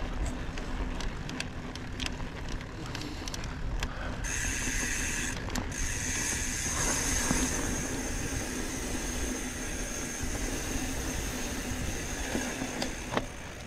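Mountain bike on bare sandstone: the rear freehub ratchet buzzes steadily as the rider coasts, from about four seconds in, mixed with rolling noise and scattered sharp clicks and rattles from the bike.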